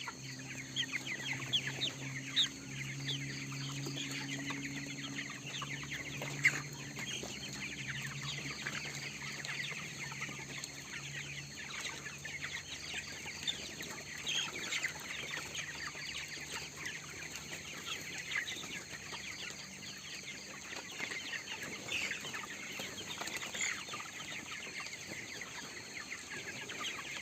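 A large flock of 22-day-old broiler chickens peeping and chirping continuously. A low steady hum runs under the first half and stops about twelve seconds in.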